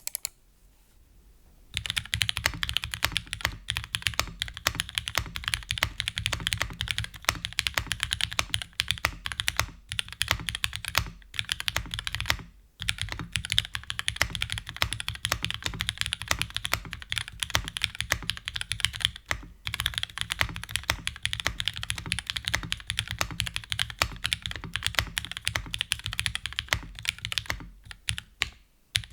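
Continuous typing on a TGR Jane v2 custom mechanical keyboard with lubed linear Cherry MX Black switches on a flex-cut 5052 aluminium plate and GMK keycaps: a dense run of keystrokes that starts about two seconds in, with a couple of brief pauses.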